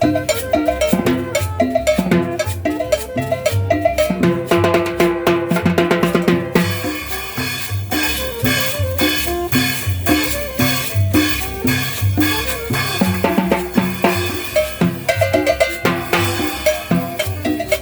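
Upbeat Latin dance music with a prominent cowbell, drums and a steady bass beat.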